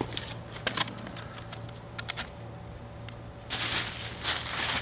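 Cardboard box and packing being handled: a few light clicks and scrapes, then about a second of loud rustling near the end.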